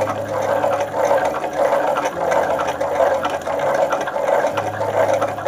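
Hand-cranked gear drive spinning a motorcycle flywheel alternator: a steady rattling whir with fast gear clicks, the alternator charging a 12 V battery.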